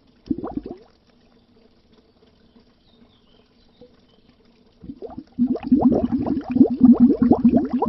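Underwater bubbles: a quick burst of bubbling blips, then a pause of about four seconds with only a faint low hum, then dense, rapid bubbling starts again about five seconds in.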